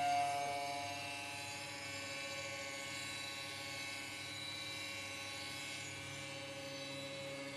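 Stick blender running on a high setting, its head sunk in a large batch of cold process soap batter, blending it on from trace to thicken it. A steady motor whine that holds throughout.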